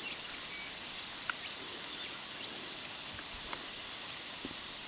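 Water spraying from a leaking bore pipe: a steady high hiss, with scattered small ticks of drops landing.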